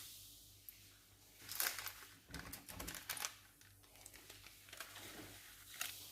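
Light crinkling and rustling of baking paper in a few short bouts, with small clicks, as raised donut dough rings are handled on it.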